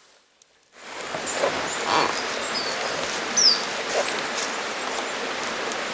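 Taiga forest ambience: a steady rustling noise that starts about a second in, with a few short high chirps, the loudest a quick falling chirp near the middle.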